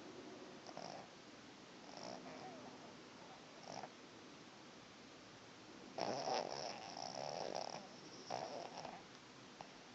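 Snoring in sleep: short, soft snores about every second or two, then louder, longer snores from about six seconds in.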